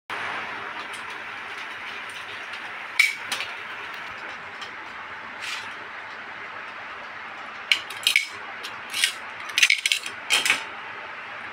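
Steady hiss from an open oven with a whole chicken and potatoes roasting on foil, with a few light metallic clinks and clicks, once about three seconds in and in a cluster from about eight to ten and a half seconds.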